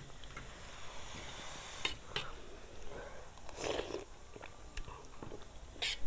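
A person eating instant noodles: chewing, with one short slurp a little past the middle, and a few light clicks of a fork on a plate.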